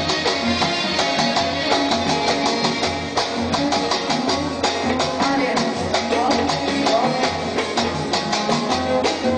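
Live wedding band music: oud, keyboard and hand percussion playing with a steady, quick beat.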